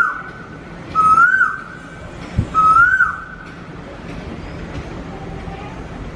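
A clear whistled note, rising then dropping sharply, repeated three times about a second and a half apart, then a pause with only a steady background hiss.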